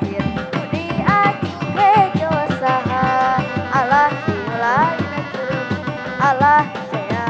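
Live Reog Dog Dog ensemble music: dogdog drums beating a quick, steady rhythm under a high, ornamented melody that slides and bends in pitch.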